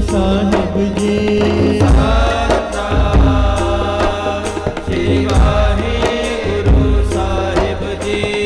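Devotional Sikh simran music: a chanted, melodic vocal line over a steady drum beat with sharp percussion strikes.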